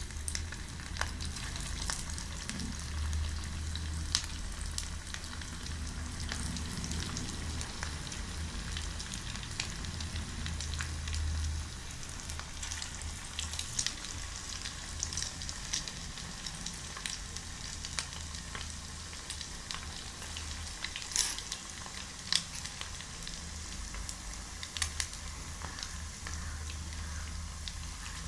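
Prawn vadas deep-frying in hot oil in a pan, with a steady sizzle and many sharp crackles, over a low hum.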